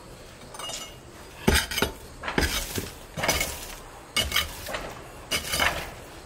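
Hand pickaxe digging into packed garden soil and brick rubble: five or six strikes, roughly one a second, each with a metal clink and a scrape of loosened earth.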